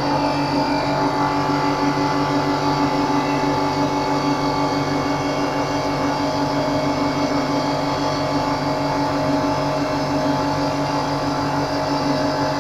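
Cosen CNC315S automatic wood turning lathe running at a steady pace while turning a wooden furniture leg: a steady motor hum with several constant tones over the noise of the cut.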